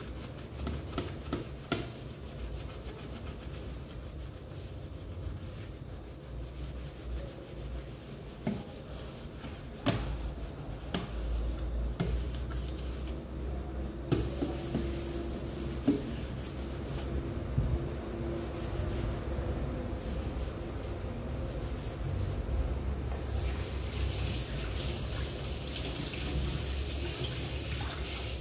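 Washing up by hand at a kitchen sink: a sponge rubbing over a metal roasting tray, with scattered knocks of dishes and the tray against the sink. Near the end the tap comes on and water runs steadily into the sink.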